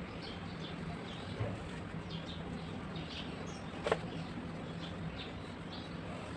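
Steady background noise with a faint low hum, scattered short high chirps like small birds, and one sharp knock about four seconds in.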